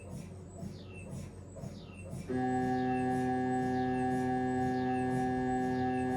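Siemens Magnetom Avanto MRI scanner during a head scan: a quieter repeating pattern of falling high chirps, about two a second, then a little over two seconds in a new imaging sequence starts. The gradient coils set up a loud, steady drone of several held tones, like a sustained chord.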